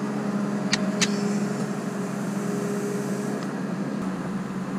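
Track-hoe (excavator) engine running steadily under load, with a higher steady whine that stops about three and a half seconds in and two sharp clicks about a second in.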